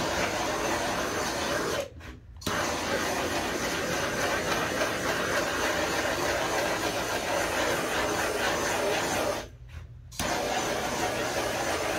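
Handheld gas torch running in a steady hiss, burning off the alcohol left on the freshly painted surface. It cuts out briefly twice, about two seconds in and again near the end, then comes straight back on.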